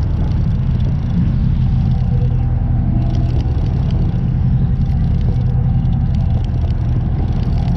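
Boat engine running steadily: a loud, even low drone.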